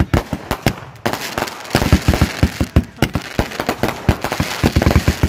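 Fireworks going off in quick succession: a dense string of sharp pops and bangs, several a second, over a steady hiss that starts about a second in.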